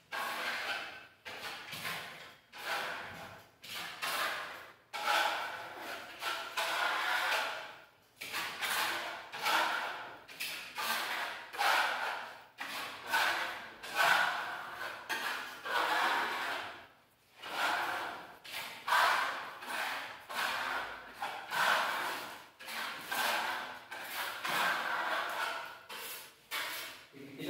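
Trowel scraping burnt-cement texture paste across a plastered wall in repeated strokes, roughly one a second.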